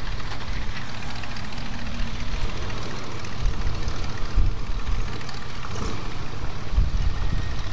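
Classic vehicle engines running as they pull away: a Pontiac Firebird Trans Am driving off and an old 1950s pickup truck creeping forward, with a steady low engine rumble.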